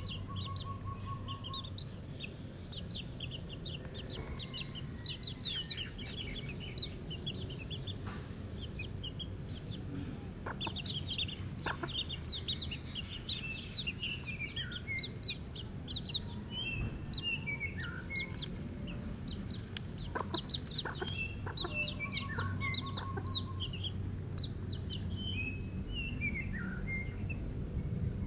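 Young chickens peeping: many short, high, downward-sliding peeps, scattered throughout and sometimes coming in quick runs.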